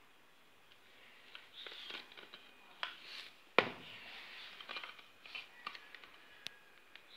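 Metallic clicks, scrapes and clacks of a PCP air rifle being handled and its side-lever action worked, with one sharp, louder clack about three and a half seconds in.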